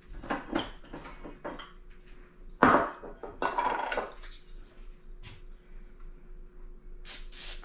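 Items being handled and set down on a wooden countertop, with the loudest knock about two and a half seconds in. Near the end comes a short hiss from an aerosol cooking-oil spray can as oil is sprayed onto a hand.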